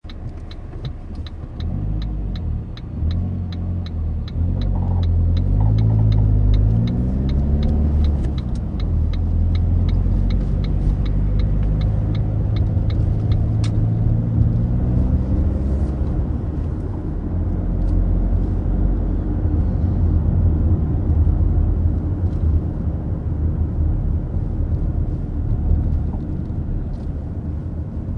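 Ford Focus diesel engine and road rumble heard from inside the cabin: the engine pitch rises and falls twice as the car pulls away and changes gear, then settles into a steady cruise. For the first fourteen seconds or so a turn-signal indicator ticks about twice a second as the car turns, then stops.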